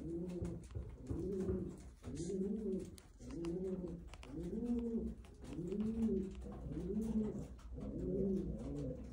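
Domestic pigeons cooing: a steady run of low coos, each rising and falling in pitch, about one a second.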